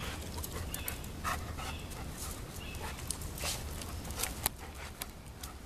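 A Labrador retriever panting as it walks at heel on leash, with scattered short clicks and scuffs over a low steady rumble.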